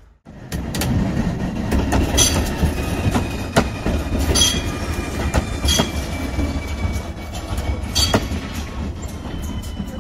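Siemens Avanto tram-train running on rails: a steady low rumble with sharp clicks and knocks at irregular intervals from the wheels over the track, and a thin high tone held for several seconds.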